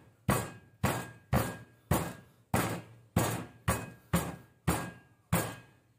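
The bottom of a cast-iron frying pan pounding boneless chicken thighs flat on a wooden cutting board, used in place of a meat mallet. It strikes in an even rhythm of about two blows a second, around ten in all.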